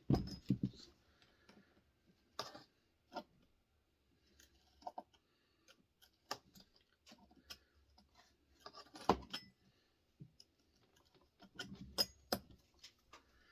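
Scattered light clicks and clinks of hand tools and small metal chainsaw parts being handled during reassembly, with a sharper knock about nine seconds in.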